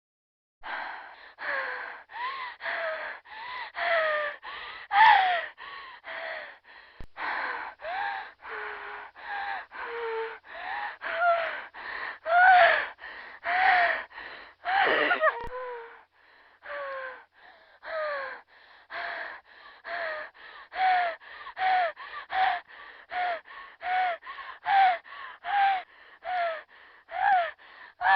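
A woman panting heavily and fast, about two gasping breaths a second, each voiced with a short falling pitch: heavy labour breathing. The breaths dip briefly just after the middle, then go on as before.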